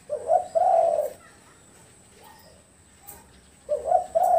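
Spotted dove cooing: two coo phrases about three and a half seconds apart, each a short note followed by a longer, drawn-out one.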